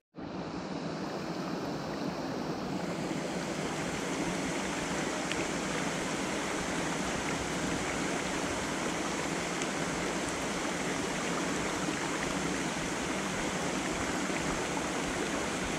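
Steady rush of a shallow rocky mountain stream, with water pouring over a low concrete weir.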